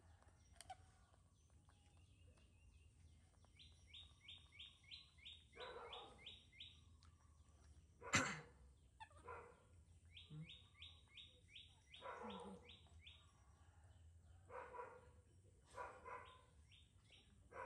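Faint animal sounds. A bird gives quick runs of short, falling chirps, about six a second, three times over, and a dog barks a few times in between. A sudden sharp sound about eight seconds in is the loudest.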